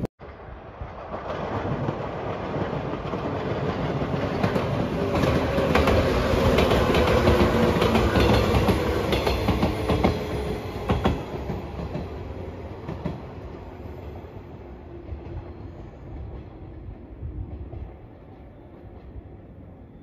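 JR 115-series electric train passing, wheels clacking over the rail joints. It grows louder to a peak about six to ten seconds in, then fades away as it moves off.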